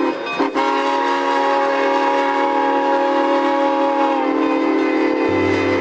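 Steam locomotive whistle blowing: a short blast, then a long, steady multi-tone blast whose upper notes drop away about four seconds in while the lower notes carry on.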